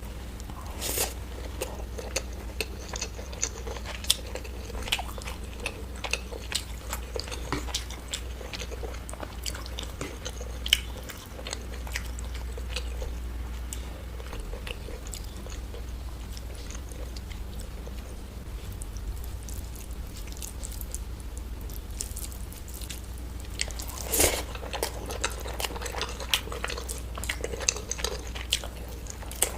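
Close-miked crunchy eating: irregular crisp bites and chewing crackles, with a louder burst of crunching about three-quarters of the way in, over a steady low hum.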